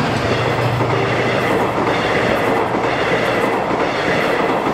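TransPennine Express Class 68-hauled train of Mark 5A coaches passing close by at speed: a steady, loud rush of wheels on rail.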